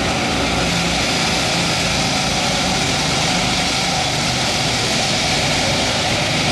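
Steady, loud machinery din with a low engine hum inside a concrete-lined rail tunnel, unchanging throughout.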